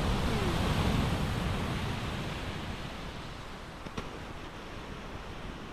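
Ocean surf with wind buffeting the microphone: a steady wash of noise that eases off over the first few seconds. A single faint click about four seconds in.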